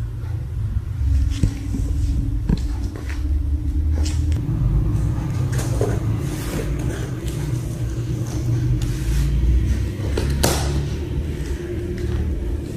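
Cats pawing and scrambling at a cardboard box on a tiled floor: scattered light knocks and scratches, with one sharper knock about ten and a half seconds in, over a continuous low rumble.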